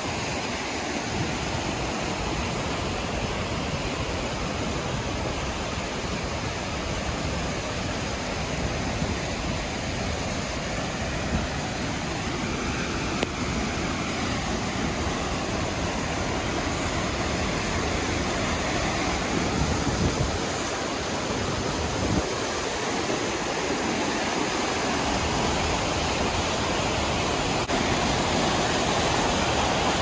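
Rushing water of a fast, swollen river below a waterfall: a steady noise that grows a little louder near the end as the falls come closer.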